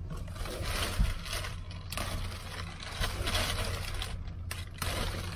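Plastic wrapping rustling and crinkling while a compressed mattress is unwrapped and handled, in uneven bursts with a few short breaks, over a steady low hum.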